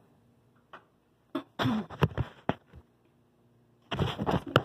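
A few separate light clicks and knocks of kitchen handling, then, about four seconds in, a loud jumble of rubbing and knocking as the recording phone is picked up and moved.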